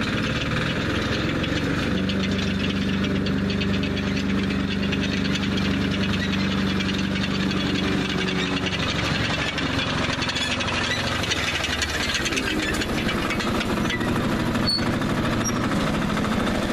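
Engine of a homemade Kettenkrad tracked motorcycle running steadily with a rapid pulsing beat as the machine drives across grass and passes close by.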